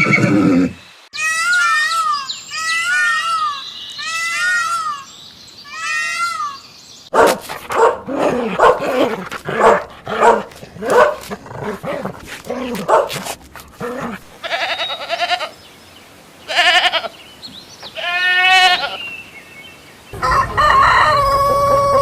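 A run of farm animal calls, one animal after another: four repeated calls, then a quick series of short calls like a dog barking, then a goat bleating with a quavering voice, and a rooster starting to crow near the end.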